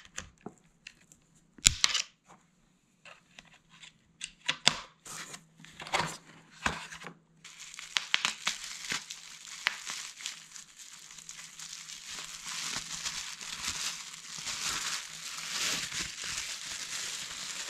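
Packing material being handled: a few scattered clicks and rustles at first, then from about seven seconds in a continuous crinkling and crackling of bubble wrap being pulled off a bike handlebar.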